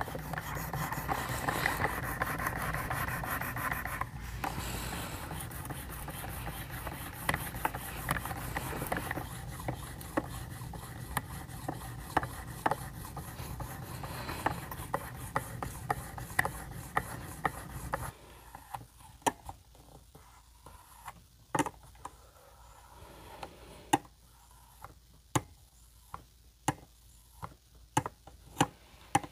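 Ceramic stone on a Work Sharp Precision Adjust guide rod, wet with soapy water, scraping back and forth along a clamped knife edge. About eighteen seconds in the scraping stops and a string of sharp clicks and taps follows as the rod and arm are handled.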